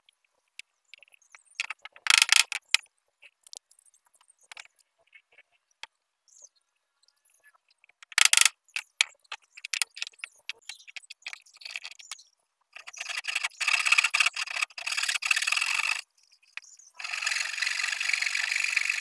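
Flush-cut pull saw trimming protruding wooden dowels flush with a wooden block: two stretches of fast rasping strokes in the second half. Before that come scattered light taps and two short, louder knocks as the glued dowels are handled and set.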